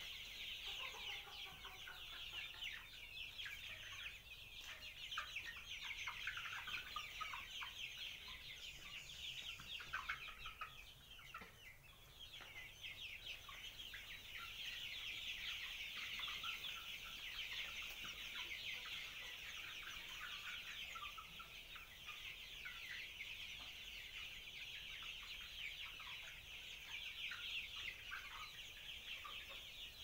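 A large flock of young Nati cross chickens calling together: a dense, continuous chorus of short, high overlapping calls, thinning briefly about eleven seconds in.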